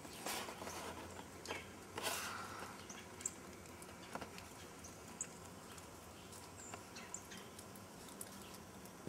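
Faint handling noise: a cardboard box being held and turned in the hands, with a few light rustles and taps in the first few seconds and small ticks after.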